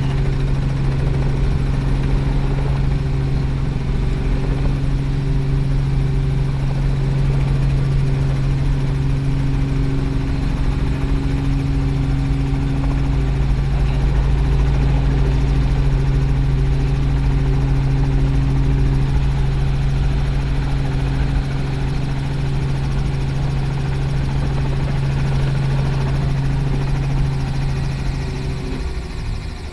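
Robinson R44 helicopter's rotor and engine, heard from inside the cabin: a steady low hum while it moves slowly just above the apron. Near the end the hum drops in pitch and gets quieter.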